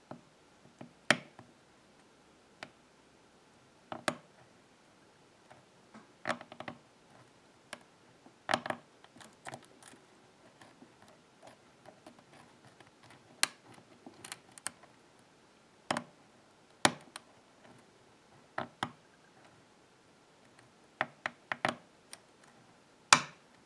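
Irregular small metallic clicks and ticks of a hook pick working the spool pins of an Ingersoll-Rand Talon 6-pin cylinder held under tension from a pry bar, with a few sharper clicks standing out.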